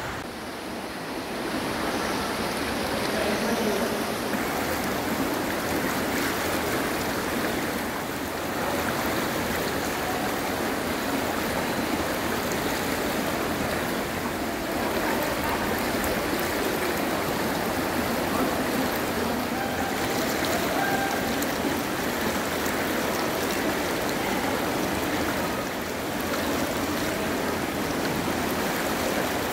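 A steady rushing noise that swells in over the first couple of seconds and then holds even.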